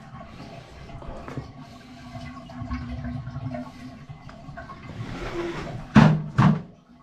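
Water gurgling and draining in a bathtub, then two loud knocks about six seconds in.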